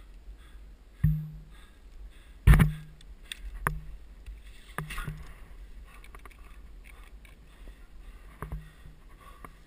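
Hollow knocks and clinks of climbing gear, a rack of cams and carabiners, bumping against the camera and rock as the climber moves. There are about six knocks, the loudest about two and a half seconds in, each with a short low ring.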